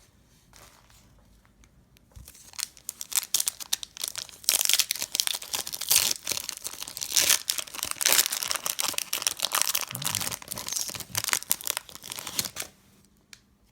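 A foil booster-pack wrapper being torn and crumpled by hand. Dense crinkling starts about two seconds in, is loudest in the middle and stops near the end.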